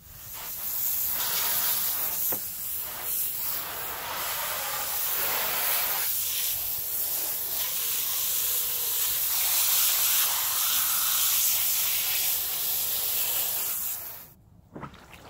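Garden hose spray nozzle spraying water over a whole raw pig carcass to wash it down, a steady hiss of spray that cuts off abruptly near the end.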